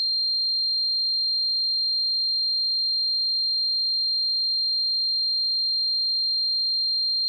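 Tinnitus-simulation tone: a single steady, high-pitched ringing, unbroken and unchanging in pitch and loudness.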